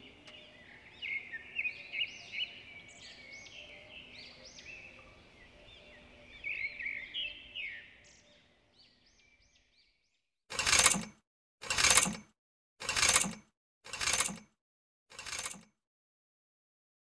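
Faint chirping birdsong, which then gives way to five short, loud noise bursts about a second apart, each a little quieter than the one before.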